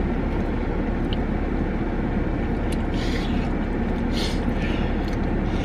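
A steady low rumble, with a faint click and a couple of short hissy rustles about three and four seconds in.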